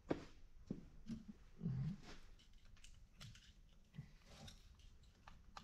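Faint scattered clicks and taps of small steel transmission parts, washers on a gear shaft, being handled. A brief low hum comes nearly two seconds in.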